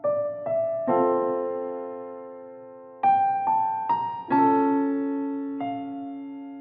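Background piano music: chords and single notes struck about once a second, each ringing on and fading.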